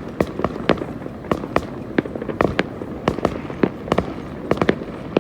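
Fireworks and firecrackers going off all around in a dense, irregular string of sharp bangs and cracks, several a second.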